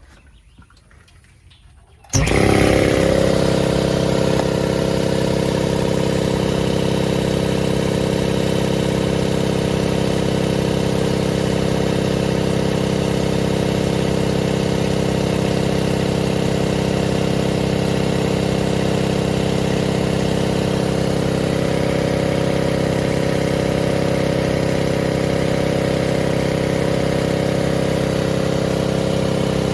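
Air compressor kicking on about two seconds in and running steadily, its piston pump sending air through the newly fitted cooler into the tank.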